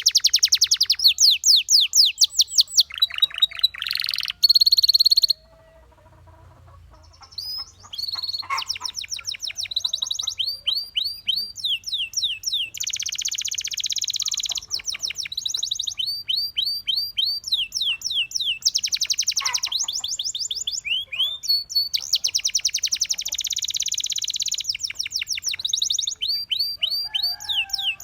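Canary singing: fast trills of repeated sweeping notes, some of them dense rolling passages, with a pause of about two seconds a fifth of the way in.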